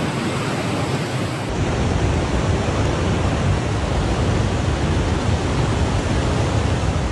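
Floodwater rushing in a loud, steady wash of noise. About a second and a half in the sound shifts to a deeper, fuller rush, as at a cut between two pieces of footage.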